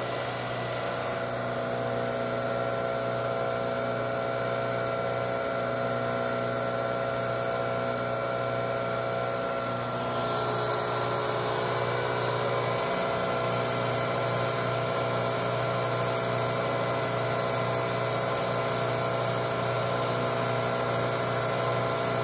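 1983 Hurco KM3 CNC mill cutting: the spindle and drive run steadily with a whine made of many fixed tones over a hiss, growing louder about ten seconds in.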